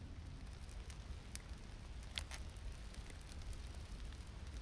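A small kindling fire of spruce twigs and tree resin crackling, with scattered sharp pops, the loudest about two seconds in, over a steady low rumble.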